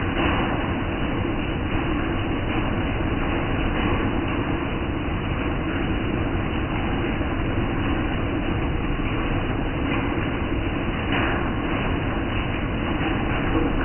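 A tourist bus's diesel engine running steadily, a continuous low mechanical noise with no break.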